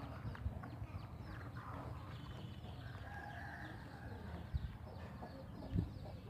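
Chickens clucking, with a couple of dull knocks in the second half.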